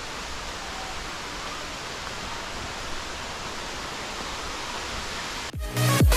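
Steady rush of a waterfall, an even hiss of falling water. About five and a half seconds in, loud electronic dance music with a heavy beat cuts in suddenly.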